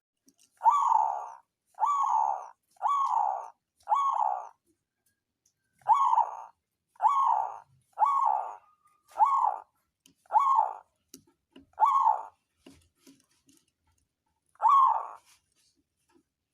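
Zebra dove (perkutut) cooing: a series of about eleven short, even coos, roughly one a second, with a brief pause after the fourth and a longer gap before the last.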